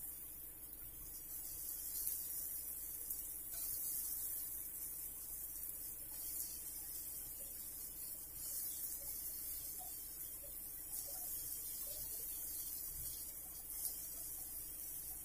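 Hot oil sizzling as balls of urad dal batter deep-fry, a steady high hiss with scattered small crackles.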